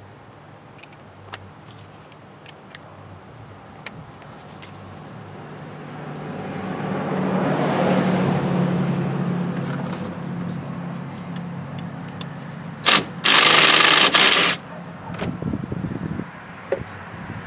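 A passing vehicle swells and slowly fades, over faint scattered clicks. Near the end a very loud hissing burst lasts about a second and a half.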